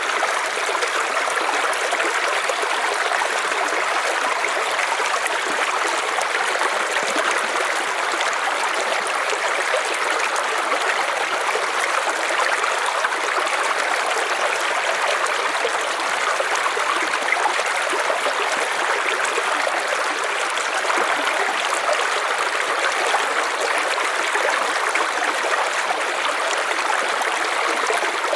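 River water running over rocks in a steady rushing flow.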